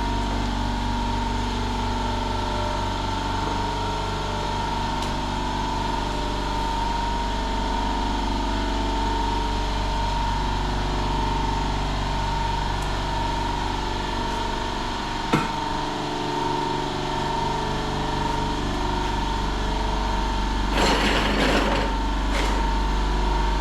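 A machine runs steadily with a low hum and a high, even whine. There is a single sharp click about 15 seconds in, and a short spray-gun hiss about 21 seconds in.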